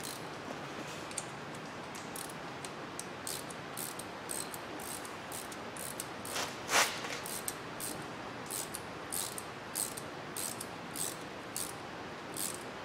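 Small hand ratchet clicking in short, irregular strokes as it turns an 8x1.25 thread chaser down an exhaust manifold bolt hole in a Ford V10 cylinder head, chasing out old thread and crud. One click about halfway through is louder and sharper.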